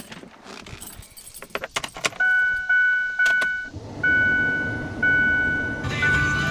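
Keys jangling and clicking into the ignition of a Ford F-350 Super Duty, then the truck's dashboard warning chime: a few quick chimes about every half second, then slower chimes about once a second, the warning for the driver door standing open with the key on. A low steady hum starts about halfway through.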